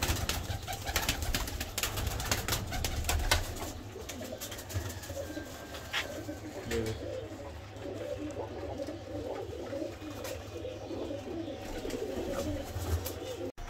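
Domestic pigeons cooing over and over in the loft, with sharp clicks and taps in the first few seconds.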